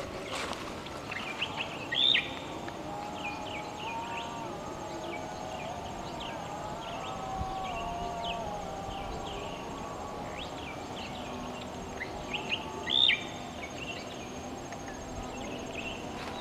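Small birds chirping: many short, quick high chirps scattered throughout, with two louder falling calls about two seconds in and again near the end, over a faint steady high-pitched whine.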